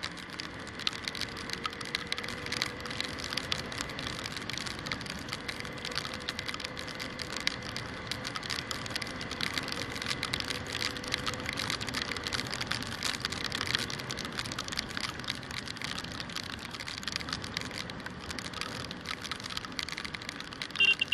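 Rain crackling on an action camera's housing during a motorcycle ride in a downpour: a dense, steady stream of tiny clicks. A short run of beeps starts right at the end.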